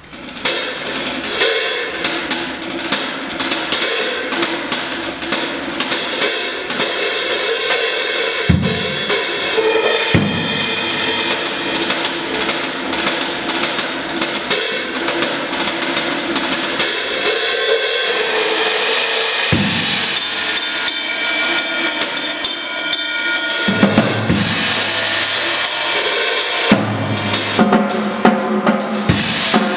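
A drum kit played solo, starting suddenly just after the beginning: dense cymbal and snare work with a few deep bass-drum or tom hits, turning to sharper separate hits near the end.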